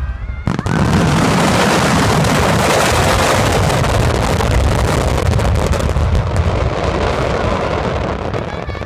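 Massed fireworks of a grand finale bursting all at once: a sudden start about half a second in, then a dense, continuous rumble of booms and crackles that thins out near the end.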